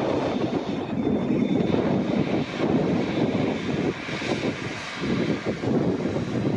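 Boeing 787-8 airliner's twin turbofan engines running at low thrust as it taxis past: a steady rushing engine noise with a faint high whine.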